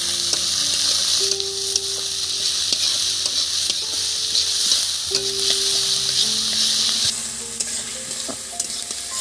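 Chopped onions sizzling in hot mustard oil in a kadai while being stirred, the spatula scraping and ticking against the pan. The sizzle eases a little about seven seconds in.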